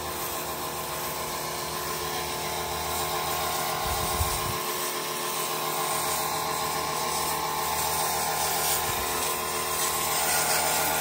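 Sun Joe SPX3000 electric pressure washer running, its motor whining steadily under the hiss of the high-pressure water jet striking a car's front bumper and grille.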